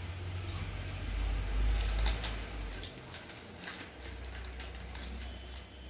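Crunching and chewing of Lay's potato chips close to the microphone, a run of sharp crackles, followed by the crinkle of the plastic chip packet as a hand reaches in, over a low steady hum.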